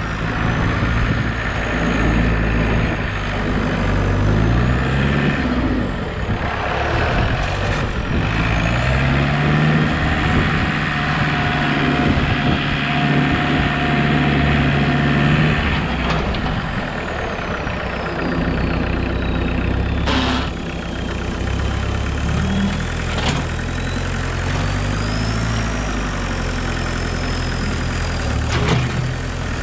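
Homemade 4x4 tractor's engine running as it drives, its pitch rising and falling with the throttle. It is held higher for several seconds in the middle, then drops. A faint high whine glides up and down alongside, and there is a sharp knock about twenty seconds in and another near the end.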